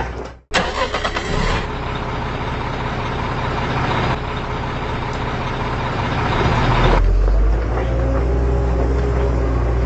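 Steady engine-like running of heavy machinery, a low hum with a light clatter. It breaks off briefly about half a second in and changes character twice, about four and seven seconds in.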